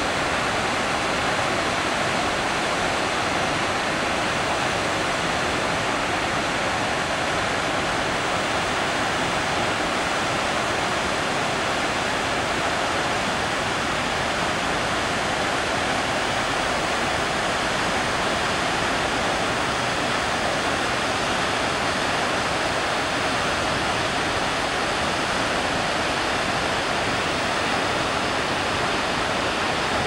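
Steady, unbroken rush of a waterfall, white water cascading over boulders and on through rapids in a mountain creek.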